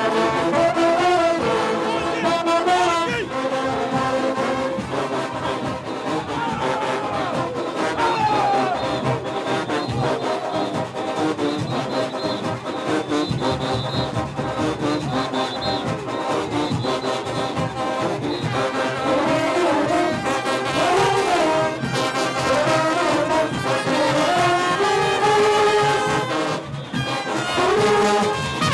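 Junkanoo band music: brass horns playing a moving melody over a steady beat of drums.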